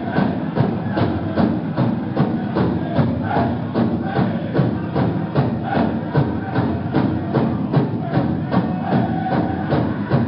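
Powwow drum group playing a song for the dance: a big drum struck in a steady, even beat under the singers' high, wavering voices.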